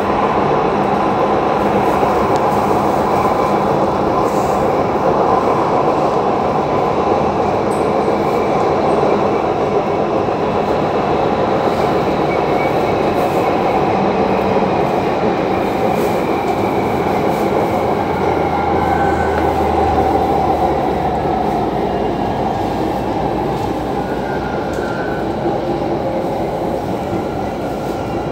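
Panama Metro Line 2 train running along an elevated track, heard from inside the passenger car: a steady rumble and hiss of wheels and motors. A faint whine falls slowly in pitch through the middle, and the noise gets a little quieter near the end.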